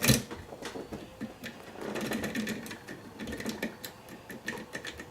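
A key clicking and rattling in a lock cylinder as it is tried clockwise: one sharp click, then a run of small metallic clicks. It won't turn that way, which the picker puts down to the key's extreme bitting.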